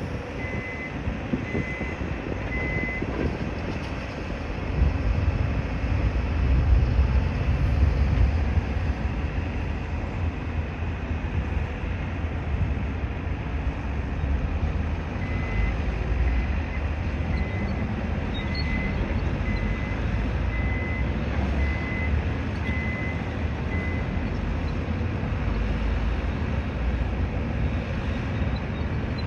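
Heavy construction vehicle's engine rumbling, swelling for a few seconds about five seconds in, while its reversing alarm beeps about once a second at the start and again through the middle stretch.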